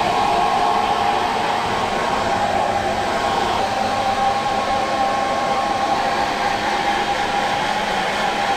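Handheld hair dryer running steadily on a wet standard poodle puppy's coat: a constant rush of air with a steady whine.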